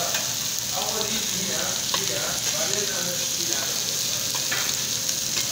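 Thin meat cutlets sizzling steadily on a hot ridged griddle plate.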